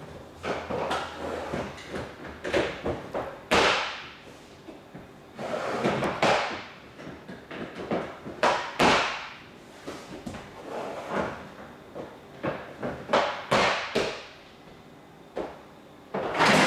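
ABS plastic interlocking floor tiles being fitted and pushed down: an irregular run of a dozen or more sharp plastic clacks and knocks, with a few short scrapes as tiles slide across each other.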